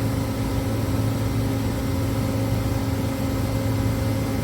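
Amada Vipros 255 CNC turret punch standing idle with its hydraulic pump running: a steady, unchanging hum with a low tone.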